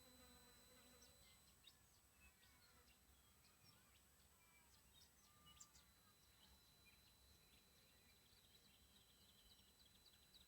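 Faint, steady high-pitched squeal from a TriStar TS-MPPT-60 solar charge controller, with birds singing in short chirps and warbles over it.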